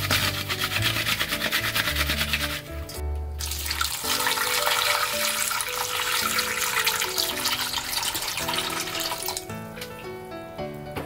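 Tap water running into a stainless-steel bowl of salted okra pods to wash them. The water starts a few seconds in and stops shortly before the end, over background music with a melody.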